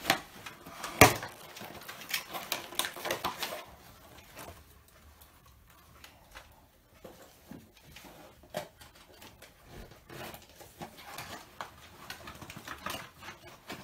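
Cardboard toy box and plastic packaging being opened and handled: scattered clicks, taps and rustles, with one sharp snap about a second in and more tapping near the end.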